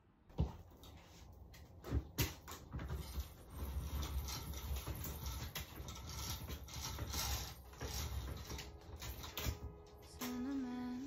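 A window roller blind being raised by hand, its chain and winding mechanism rattling and clicking, with a few sharp clicks in the first two seconds. A held musical note comes in near the end.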